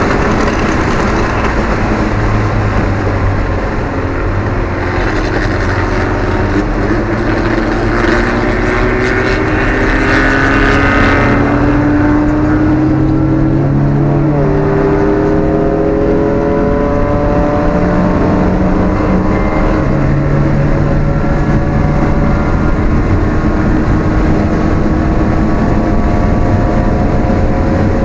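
Alfa Romeo 1750's twin-cam four-cylinder engine heard from inside the car at racing speed, the engine note wavering through the first half and then climbing slowly and steadily in pitch as the car pulls hard in one gear.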